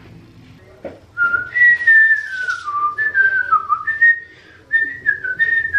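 A tune being whistled: a string of gliding notes that starts about a second in, with short breaks between phrases.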